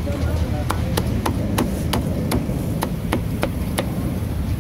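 Steel meat cleaver chopping through a roast duck onto a thick wooden log chopping block: about ten sharp chops, roughly three a second, over a steady low background rumble.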